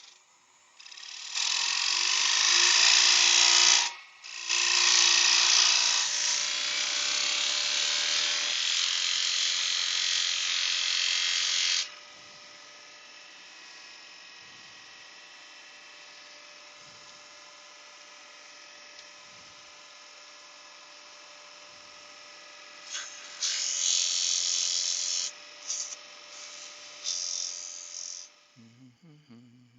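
Wood lathe running with a turning tool cutting into spinning spalted beech: a loud hissing cut for most of the first twelve seconds, broken briefly about four seconds in. Between cuts only the lathe's steady motor hum and whine is heard, and the hissing cut returns for a few seconds near the end.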